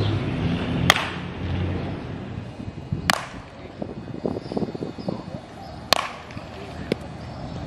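Baseball bat hitting pitched balls in batting practice: three sharp cracks of bat on ball about two to three seconds apart, and a lighter knock near the end.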